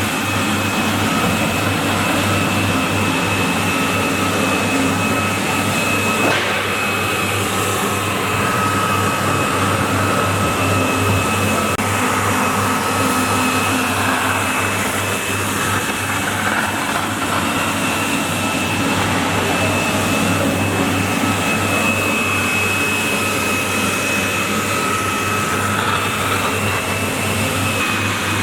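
Walk-behind floor scrubber-dryer running steadily: a vacuum-like motor noise with a steady high whine over a low hum.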